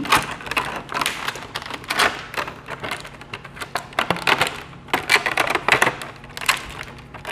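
Small objects being handled by hand: an irregular run of clicks, taps and light knocks.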